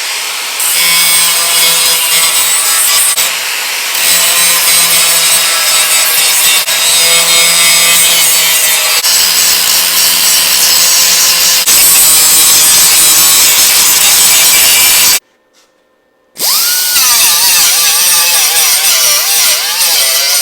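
A handheld power grinder grinding the steel of a truck's welded rocker panel, a loud continuous abrasive hiss over a low motor hum. It cuts out for about a second near the end and starts again with a wavering pitch.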